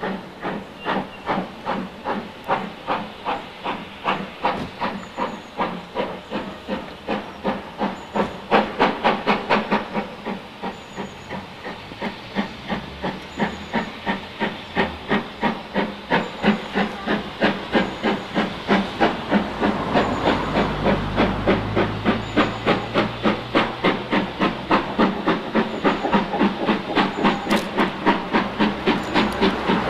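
Steam locomotive exhaust working hard under way: rapid, even chuffs over a steady hiss of steam. A low rumble joins in about two-thirds of the way through.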